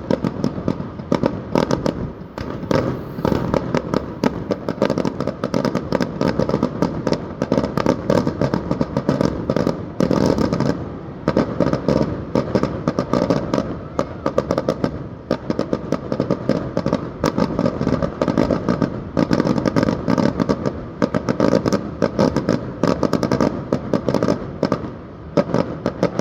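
Aerial fireworks bursting in a dense, unbroken barrage of rapid bangs and crackles.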